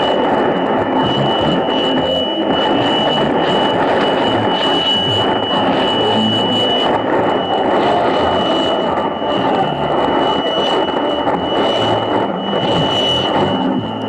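Shortwave receiver tuned to a weak AM station on 4865 kHz in the 60-metre tropical band: a steady rush of static and noise with a constant high whistle. The whistle fits the 3 kHz beat against the neighbouring station on 4862 kHz.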